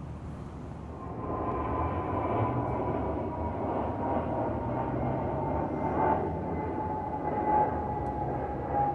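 A passing vehicle heard from a distance: a steady rushing noise that swells about a second in, with a faint tone slowly falling in pitch.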